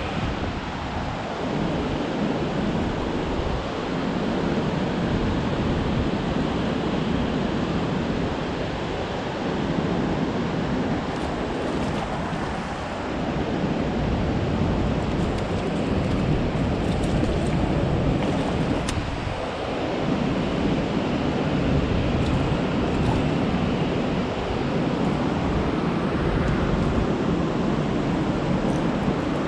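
Steady, loud rushing noise of wind buffeting the microphone mixed with fast-flowing floodwater, swelling and easing every few seconds.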